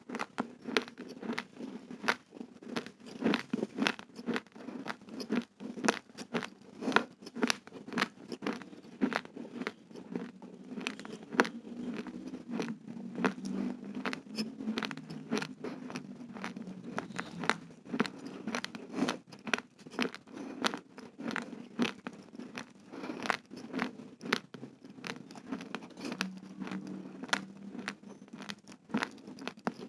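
Raw uncooked rice grains crunching as they are chewed close to the microphone: a dense, irregular run of sharp cracks, several a second.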